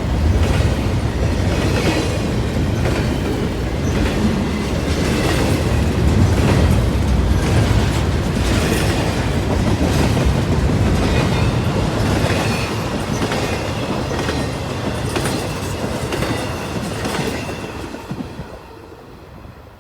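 Freight train cars rolling past with a steady clickety-clack of wheels over rail joints, fading away near the end as the last cars pass.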